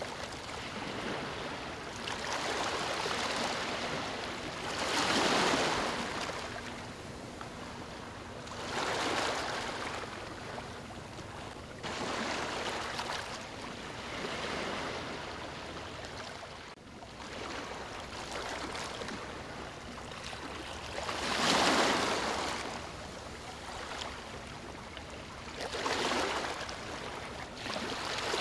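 Ocean waves breaking on a beach: a wash of surf that swells and recedes every few seconds, with the biggest breakers about five, nine, twenty-one and twenty-six seconds in.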